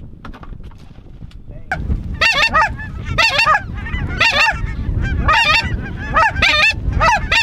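Geese honking: starting about two seconds in, loud high-pitched honks come in quick multi-note clusters, about one cluster a second, over a low wind rumble.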